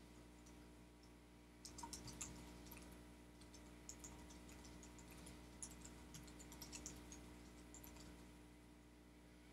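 Computer keyboard typing: faint, irregular runs of keystrokes starting a couple of seconds in and stopping shortly before the end.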